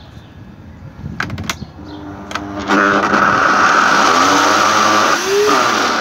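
Top House 1800 W canister vacuum cleaner switched on by its foot switch: after a few clicks, its motor starts about two and a half seconds in and runs loud with a steady high whine over rushing air, dipping briefly about five seconds in. It sounds very rough ('muy feo'), a waterlogged motor that the owner suspects of worn carbon brushes or bearings.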